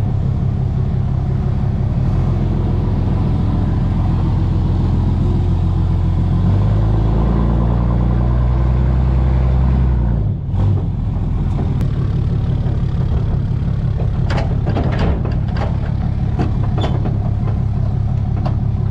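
Engine of the tow vehicle running steadily, its pitch shifting up and down a few times in the middle. The sound drops out briefly about ten seconds in, and a few light knocks follow later.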